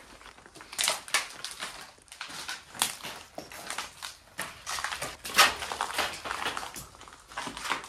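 Footsteps crunching over loose debris on the floor, an uneven run of short gritty crunches with the loudest a little past the middle.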